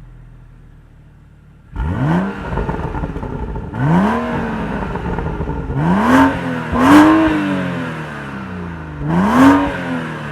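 BMW M235i's turbocharged straight-six and exhaust revved in five quick throttle blips, each one climbing fast in pitch and falling back slowly, after a quieter idle at the start.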